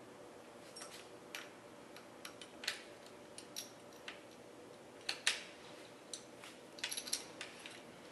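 Small metal torque-arm parts (hose clamp, bolt, nut and a Y-shaped hex wrench) clicking and clinking as they are fitted by hand at a bike's rear dropout. The clicks are scattered and sharp, the loudest just after five seconds in, with a quick run of them near seven seconds.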